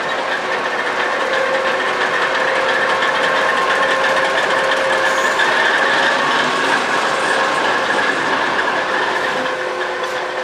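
DR class 132 'Ludmilla' diesel locomotive's 16-cylinder Kolomna 5D49 diesel engine running steadily, a dense drone with several held tones. It grows a little louder around the middle and eases off near the end.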